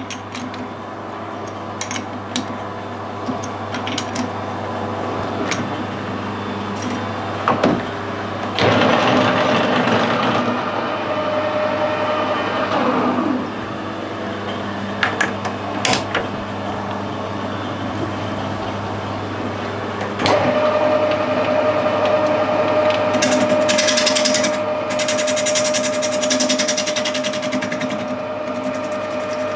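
Metal lathe running with a steady hum while a bronze bar is faced in its three-jaw chuck, with a few sharp clicks of the chuck being tightened early on. The running grows louder about two-thirds of the way in.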